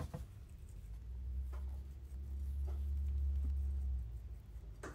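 A shaker bottle of chili-lime seasoning (Tajín) being shaken over a plate of cucumber slices: a few faint taps and rattles, about one a second. A low rumble swells under them for about three seconds in the middle and is the loudest sound.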